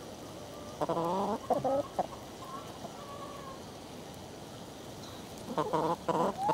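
Domestic hens clucking. There is a short run of calls about a second in and another near the end, with fainter clucks in between.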